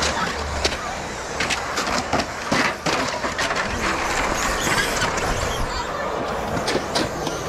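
Radio-controlled electric cars running on an asphalt track: a steady noisy hiss with scattered clicks, with faint voices in the background.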